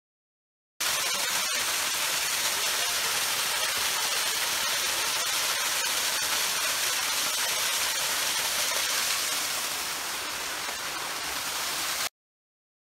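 Waterfall: a steady hiss of rushing, falling water that starts abruptly about a second in and cuts off abruptly about a second before the end, with a single sharp click shortly after it begins.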